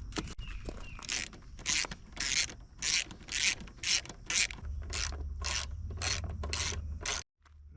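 Hand ratchet wrench clicking through about a dozen repeated strokes, roughly two a second, cutting off suddenly near the end.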